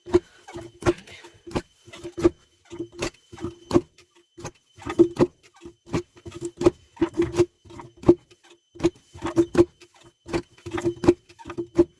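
A rapid, irregular series of knocks or taps, about two to four a second, each with the same short ring.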